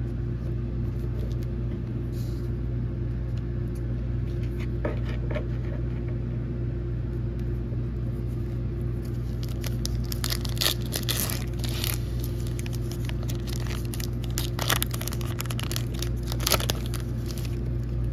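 Foil Pokémon card booster pack wrapper crinkling and tearing as it is worked open by hand, a run of crackly rustles starting about halfway in, over a steady low hum.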